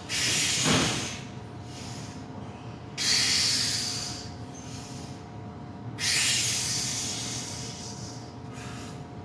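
A weightlifter's forceful, hissing exhalations: three hard blows of breath about three seconds apart, one per rep, each trailing off, as he strains through a set of heavy incline bench presses with 315 pounds.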